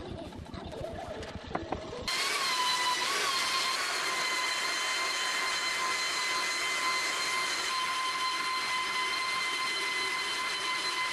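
Electric belt sander running on hardwood boards: a steady high whine over the hiss of the belt on the wood, cutting in abruptly about two seconds in after a couple of seconds of lighter scraping and knocks.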